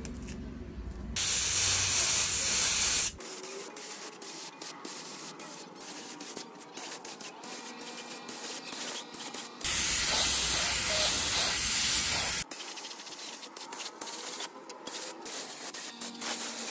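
Paint spray gun spraying a bicycle frame: two bursts of steady hiss a few seconds long, about a second in and again about ten seconds in. Between them are quieter stretches full of short, irregular clicks.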